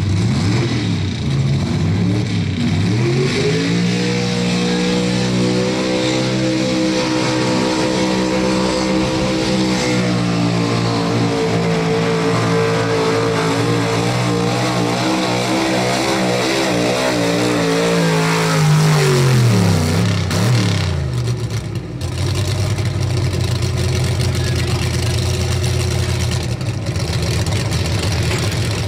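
Pro Street 4x4 pulling truck's engine revving up and holding high rpm at full throttle as it drags the pulling sled, the pitch wavering a little. About twenty seconds in the revs fall away, leaving a steady low engine rumble.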